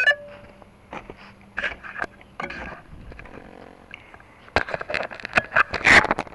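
Handling noise of a Blade 350QX quadcopter being picked up, heard through its own onboard camera: scattered clicks, scrapes and knocks, growing denser and louder in the last two seconds. A short electronic beep sounds right at the start.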